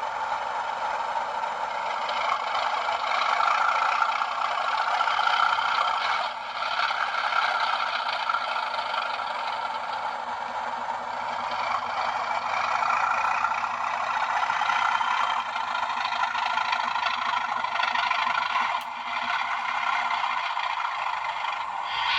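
Model Class 37 diesel locomotive's Hornby TTS sound decoder playing the engine running through a tiny speaker: a steady, thin diesel sound with almost no bass, swelling and easing a little.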